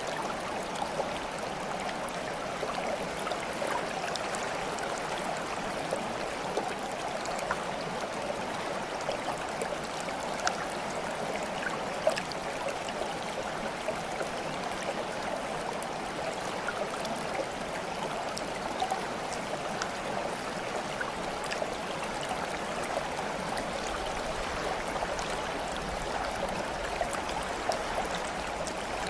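Water flowing and trickling steadily, like a small stream, with faint small splashes and drips scattered through it.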